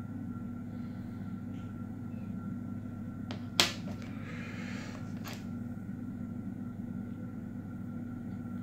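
Steady low room hum, with a sharp click of a coin set down on a mat about three and a half seconds in, and a couple of fainter clicks and a brief rustle of handling around it.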